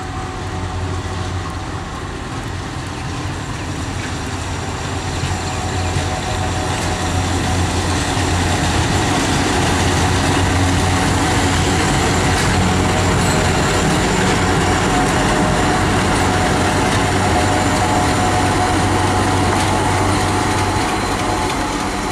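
Diesel locomotive engine running steadily as the engine approaches and passes close by, its deep, steady drone growing louder over the first several seconds, then easing off just before the end.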